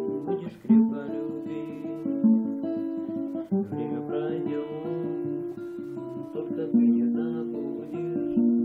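Acoustic guitar played with plucked and strummed chords at a steady level.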